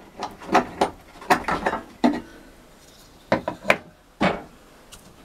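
A threaded filler cap is unscrewed from a socket in a boat's deck with a run of clicks, knocks and scraping. It is then set down on the deck with a few sharper knocks about three and a half seconds in, opening the filler so water can be poured into the diesel engine's cooling circuit.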